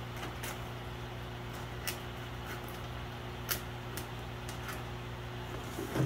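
Packing tape on a cardboard box being slit open with a small hand blade: about five faint short clicks and scrapes, over a steady low hum of room equipment.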